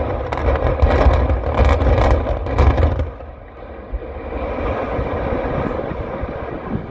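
Concrete building collapsing in a demolition: a heavy, low rumble with repeated cracks and crashes for about three seconds. It then falls away to a quieter, steady rumble.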